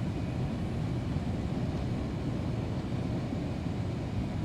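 Steady low rumble of a Boeing 787-8's cabin noise in descent, engine and airflow heard from inside the passenger cabin.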